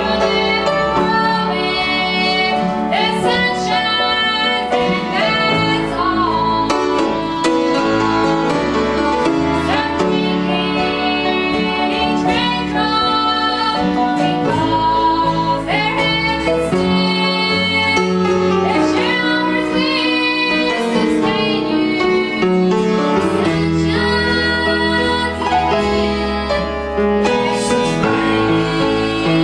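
Live southern gospel song: a woman singing into a microphone over grand piano and band accompaniment, with a steady bass line underneath.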